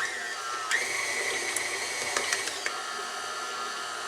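Electric mixer motor switched on at the start and kneading stiff pizza dough: a steady motor whine that shifts pitch a couple of times as the load changes, with a few knocks.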